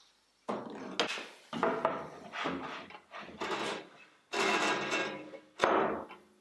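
A plywood board being handled on a machine table: a run of wooden knocks and sliding scrapes, several a second apart, the longest one near the end.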